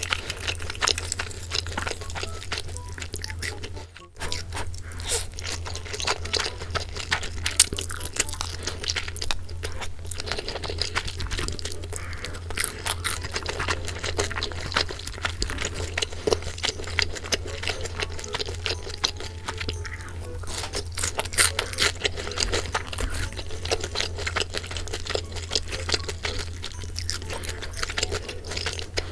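Close-miked crunching and chewing of boneless fried chicken, with many irregular crisp bites throughout.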